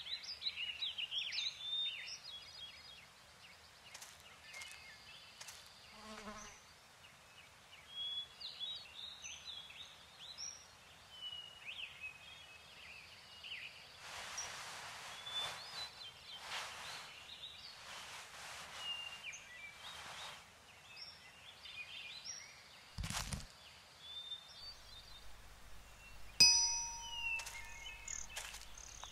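Birds chirping and twittering in short, scattered calls over a quiet outdoor ambience. Near the end, a few soft bell-like chime tones ring out.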